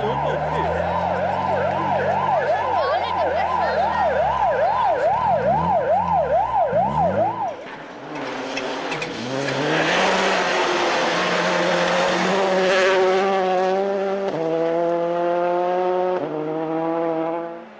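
A siren wailing up and down about twice a second, cutting off after about seven seconds. Then a rally car goes by at speed on a snowy gravel road, its engine revving hard and climbing through two upshifts over a rushing noise.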